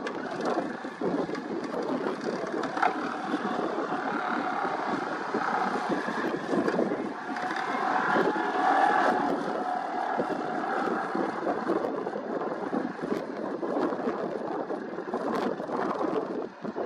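Excavator-mounted vibratory pile hammer running steadily, vibrating a 13 m steel sheet pile into the ground with a dense, rough mechanical noise.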